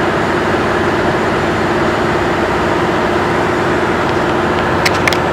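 Steady drone of a ferry's engines and onboard machinery, with a low hum running through it. A few short clicks near the end.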